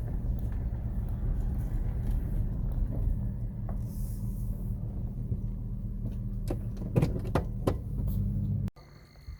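A car's steady low engine and road rumble, heard from inside the cabin as it slows to pull over, with a few sharp knocks and clicks near the end. It cuts off abruptly shortly before the end.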